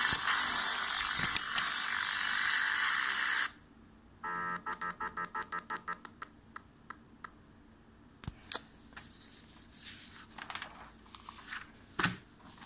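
Background pop music playing, cut off abruptly about three and a half seconds in. A quick run of about ten short pitched pulses follows, then paper rustling with scattered clicks and a sharper knock near the end as the sheets are handled.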